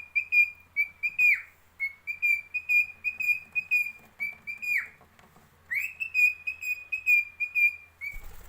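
Cockatiel whistling rapid runs of short, same-pitched notes, about five a second, in three phrases; the first two end in a downward swoop.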